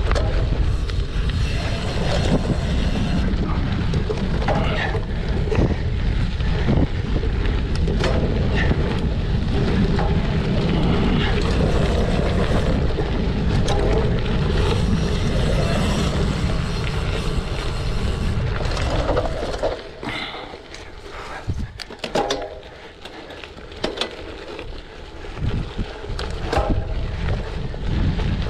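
Wind rushing over the microphone of a cyclocross bike at race speed, with the bike rattling over rough ground. About twenty seconds in the rushing eases, leaving scattered sharp knocks and clatters.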